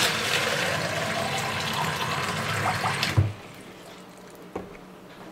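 Water running from a tap into a cut-off plastic water bottle, shutting off about three seconds in with a short knock.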